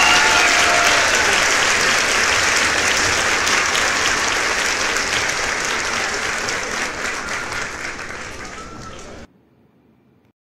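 Crowd applauding, with a few whistles near the start, fading out and cutting off about nine seconds in.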